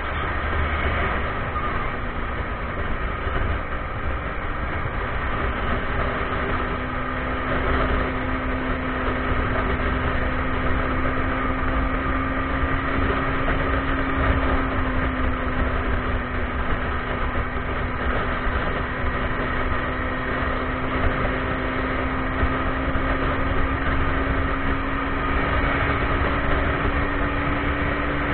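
Motorcycle engine running at a steady cruise, its note holding even and creeping slightly higher near the end, under a constant low rumble of wind and road noise.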